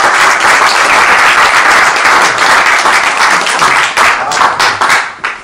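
Audience applauding: many hands clapping together in a dense, steady patter that thins out near the end and then cuts off suddenly.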